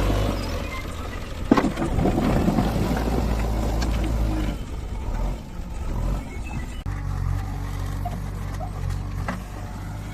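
Diesel engine of a JCB 3DX backhoe loader running steadily while it works, with a sharp knock about a second and a half in.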